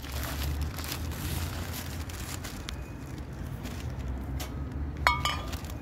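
Groceries being handled and packed from a wire shopping cart into a cloth shopping bag: scattered rustles and light knocks over a steady low rumble. About five seconds in there is a sharp clink with a brief ring.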